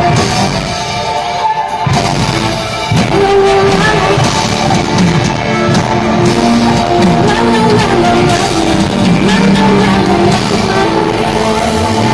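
Live pop music played loud through a concert sound system, with a sung vocal line over the band.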